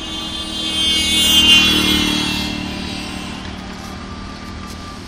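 Motor vehicle engine on the road close by, growing louder to a peak about a second and a half in, then fading away.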